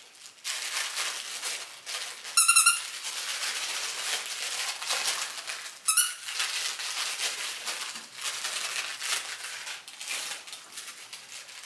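Five-week-old puppies scuffling and scratching about on fabric bedding and pads as they play, with two short, high squeaks, about two and a half and six seconds in, the first the loudest sound.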